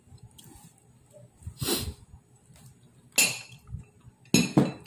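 Four short breathy noises from a person, spaced over several seconds, the last two close together near the end.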